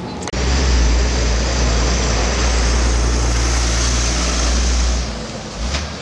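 Heavy dump truck driving past close by: a loud, low diesel rumble with tyre and road noise. It starts abruptly and eases off about five seconds in.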